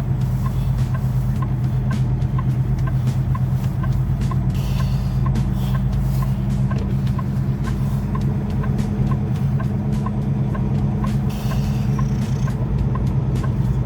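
Semi truck's diesel engine running steadily at low speed, heard from inside the cab, with a regular high tick about two to three times a second.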